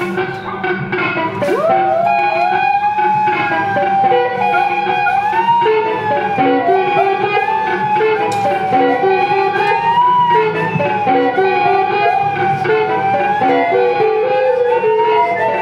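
Freely improvised duo music: an electric guitar picks short, changing notes under a long, wavering tone from a small hand-held horn with a metal bell, which bends up and down in pitch.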